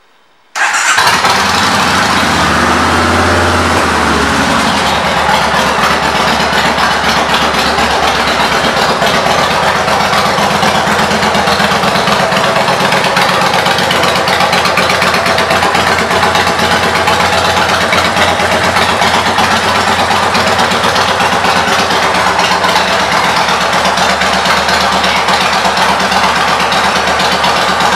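Kawasaki Vulcan Classic V-twin with Vance & Hines pipes starting about half a second in, revving up briefly over the next few seconds, then idling steadily and loudly.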